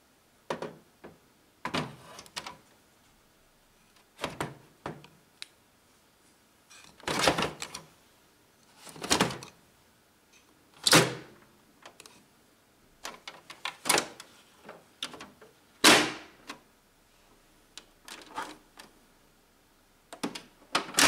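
Plastic knocks, clicks and scrapes of an HP laser printer being handled: a toner cartridge slid into its bay, then the top cover and scanner unit lowered shut. About a dozen separate handling sounds with quiet gaps between, the loudest two near the middle and about three quarters of the way through.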